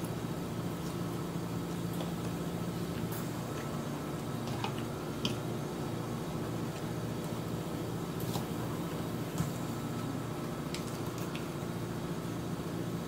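Eating sounds: a fork clicking now and then against a bowl and crisp iceberg lettuce being picked up and chewed, scattered light clicks over a steady low hum.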